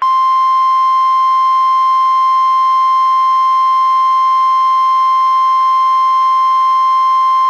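NOAA Weather Radio warning alarm tone: a loud single steady tone of about 1050 Hz, switched on abruptly and held unchanged. It is the attention signal that announces a warning broadcast, here a tornado warning.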